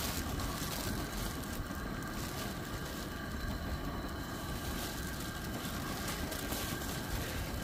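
Gas camp stove burners running under a pot of water heating toward a boil: a steady, even hiss.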